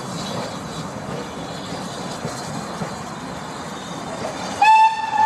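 Coaches of a train rolling steadily away, then about four and a half seconds in a steam locomotive's whistle sounds, one loud, long, steady note that carries on.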